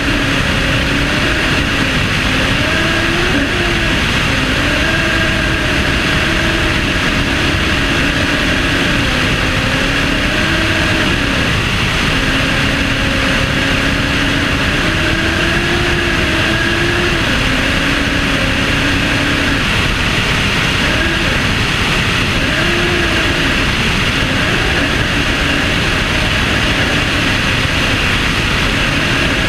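Aircraft engine and propeller droning steadily in flight, its pitch wavering slightly up and down, under heavy wind rush on a wing-tip-mounted microphone.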